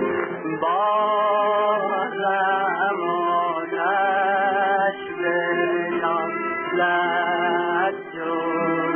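Men singing a Persian song, with long wavering held notes of about a second each over a steady accompaniment note.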